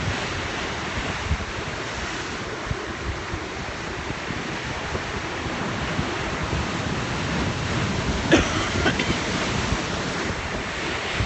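Sea surf washing on the shore, with wind buffeting the phone's microphone in low rumbling gusts. A brief clatter about eight seconds in.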